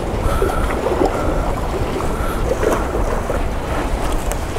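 Wind rumbling on the microphone, with a faint whistle that comes and goes from a tight fishing line while a big fish is reeled in; the line whistle is the sign of a tight line with a fish on.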